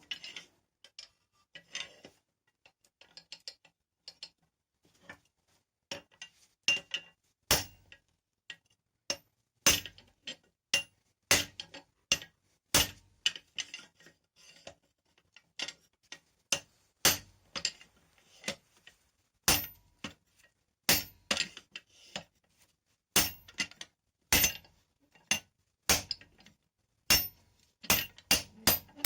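Hammer striking steel on an anvil: ringing blows about one a second, coming in a quick run near the end. Lighter metallic clinks and taps in the first few seconds.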